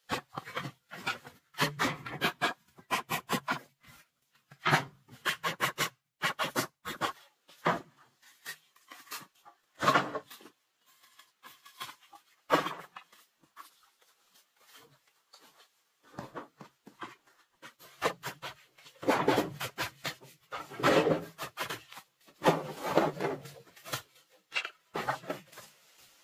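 Machete chopping and trimming bamboo: irregular bursts of quick, sharp strikes with short pauses between them.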